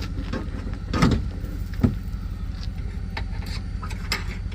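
Truck engine idling steadily, with a few short knocks, one about a second in and another just before two seconds.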